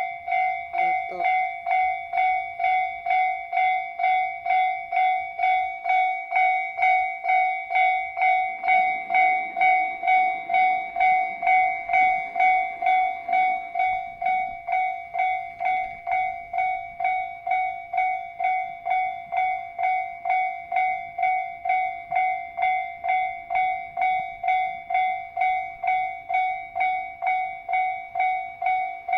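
Japanese railway level-crossing warning alarm starting up abruptly: an electronic bell giving a ringing two-tone clang about twice a second, steady and loud.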